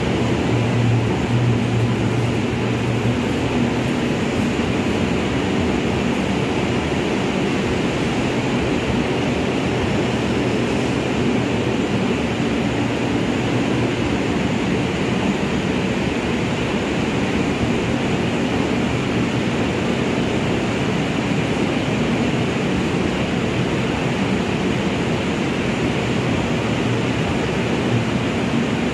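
Indian Railways LHB passenger coaches rolling past along a platform as the train pulls in: a steady rumble of wheels on rail. A low hum from the passing luggage-brake-and-generator car's diesel generator fades out within the first few seconds.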